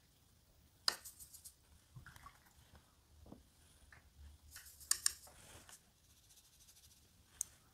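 Faint clicks and taps of a watercolour brush against the palette and water pot while mixing paint: a quick run of small taps about a second in, a louder cluster near the middle, and a single click near the end.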